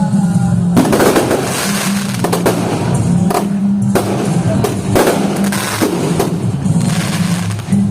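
Fireworks going off in repeated sharp bangs and crackles, over loud music with a heavy bass line.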